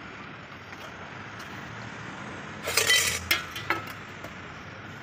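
Hard objects clinking: a cluster of sharp, ringing clinks about three seconds in, then two lighter clicks, over steady background noise.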